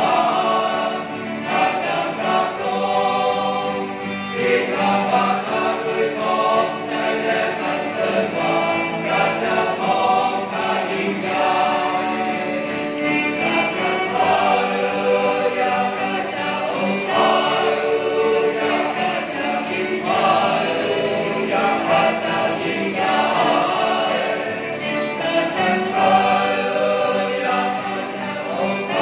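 A small mixed choir of men's and women's voices singing a hymn together in held, continuous phrases, accompanied by strummed acoustic guitars and a violin.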